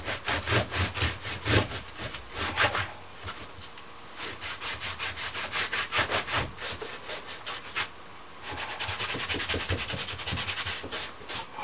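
Hand scrub brush scrubbing a surface in quick back-and-forth strokes, about four or five a second, in runs broken by short pauses.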